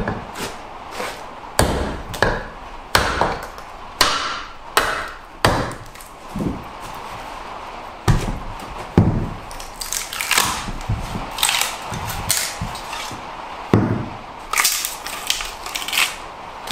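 Wooden mallet knocking a froe into a green log, a run of sharp wooden strikes. Later the strikes come more irregularly, with cracking and tearing as the log splits apart.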